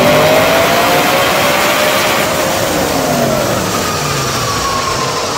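Audi RS4's 4.2-litre V8 running at high revs on a chassis dynamometer, its exhaust note gliding downward in pitch and slowly getting quieter as the revs come down.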